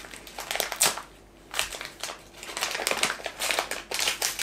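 Gift wrapping paper being torn open and crumpled by hand as a small present is unwrapped, crinkling in irregular bursts with a short lull about a second in.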